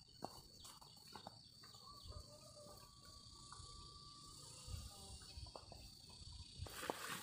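Faint rural ambience with a steady high insect drone. A few soft footsteps on a dirt path fade out over the first couple of seconds. Near the end a louder rustling starts.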